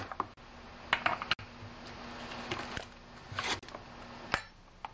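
Scattered light clicks and taps of a hand wrench working the two bar nuts on a Husqvarna 254 chainsaw's side cover, loosening them to take the bar and chain off.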